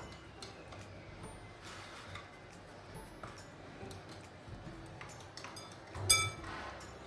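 Faint ticks and taps of hands pressing a ball of wheat-flour dough on a wooden board, with one loud, sharp ringing clink about six seconds in.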